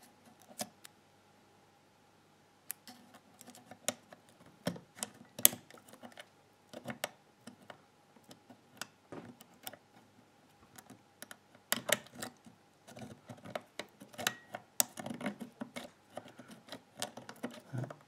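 Steel lock picks clicking and scraping inside an old ERA two-lever padlock as the levers are lifted and the bolt is pushed back to pick the lock closed. The clicks are small, irregular and come in scattered clusters.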